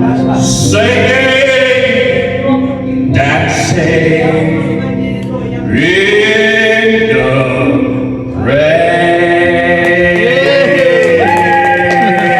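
Singing over backing music, with long held notes that bend in pitch, as in a choir-like vocal passage.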